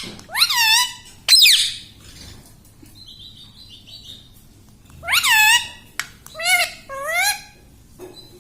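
Pet parrot calling: short, sharp squawks that rise and then fall in pitch. Two come in the first two seconds, soft twittering follows, then three more calls come in quick succession.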